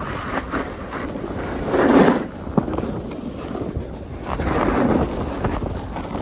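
Edges sliding and scraping over packed, tracked snow on a downhill run, with wind rushing over the microphone. The scraping swells twice, about two seconds in and again a little before five seconds, with a sharp click just after the first swell.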